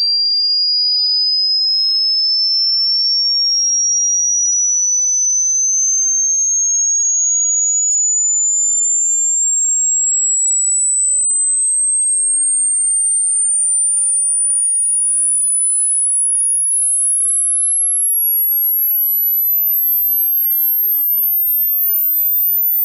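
Electronic dog-whistle tone: a single pure tone held at a steady loudness, climbing slowly in small steps from a high whistle to a very high, thin pitch near the top of hearing.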